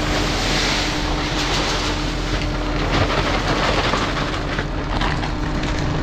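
Tractor engine running steadily, a loud even noise with a constant hum underneath.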